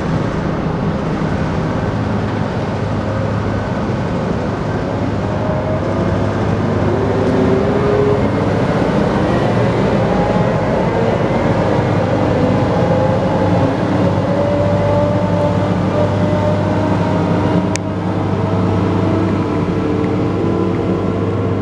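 Fuchs MHL340 material handler's diesel engine running steadily, with a whine that glides slowly up and down in pitch from about six seconds in. A single sharp click comes near the end.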